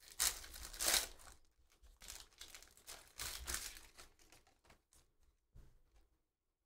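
A foil pack of Panini Donruss basketball cards torn open and crinkled by hand, crackling in bursts through the first few seconds. The sound thins to a few soft rustles and clicks as the cards come out of the wrapper, then dies away.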